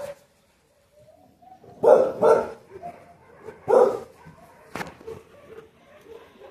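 Dog barking: two quick barks about two seconds in, then one more a second and a half later.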